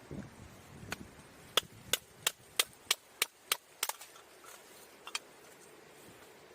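Firewood being split: a run of sharp wooden knocks, about three a second, eight in a row, with a single knock before them and two fainter ones after.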